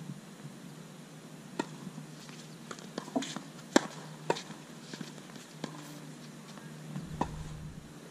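Tennis balls striking rackets and bouncing on a hard court: a scattering of sharp single knocks, a few seconds apart, over a steady low hum.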